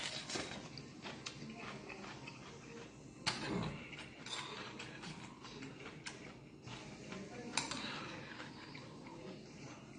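A metal spoon clinking and scraping in a soup pot of galbitang while someone eats, with a few sharper clinks, the loudest about three seconds in and again past seven seconds, over soft eating sounds.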